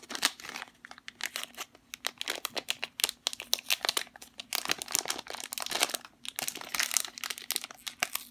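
Plastic squishy packaging being crinkled and handled as a mini squishy toy is unwrapped: irregular crackling with quick sharp rustles, denser in several spells.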